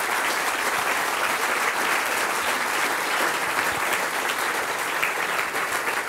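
Audience applauding steadily in a large hall, many hands clapping at once.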